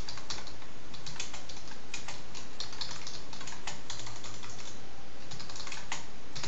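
Typing on a computer keyboard: quick, irregular runs of key clicks, with a brief pause about two-thirds of the way through.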